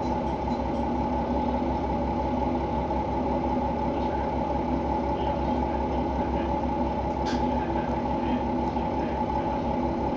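KiHa 120 diesel railcar's engine heard from inside the car: a steady drone with an even low throb underneath. A single faint click comes about seven seconds in.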